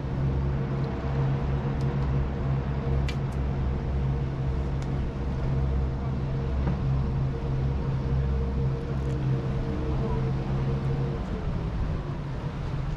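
Boat engine idling with a steady hum over a low rumble; the hum stops about eleven seconds in. A few short clicks sound in the first few seconds.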